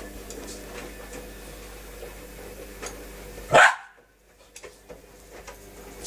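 A cairn terrier barks once, a little past halfway, over the steady hum of a running washing machine.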